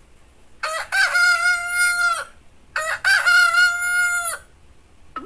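Rooster crowing twice, each cock-a-doodle-doo opening with short broken notes and ending in a long held note that drops away.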